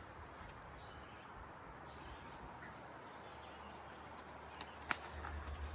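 Quiet outdoor ambience. A single sharp click comes about five seconds in, followed by a low rumble.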